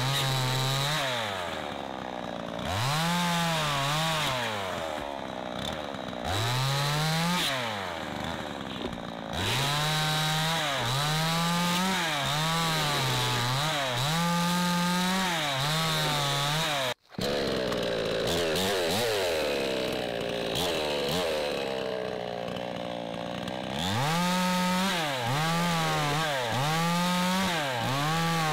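Two-stroke Zenoah-clone chainsaw cutting wood, its revs repeatedly rising to full throttle and dropping back. At full throttle the pitch holds high but wavers as the chain bites into the log. The sound drops out for a split second about two-thirds through.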